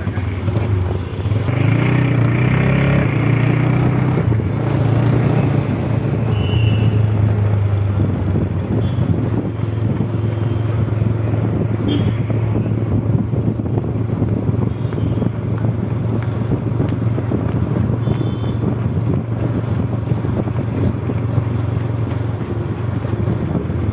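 Motorcycle engine running steadily at low speed while it is ridden alongside a group of runners, with wind rumble on the microphone.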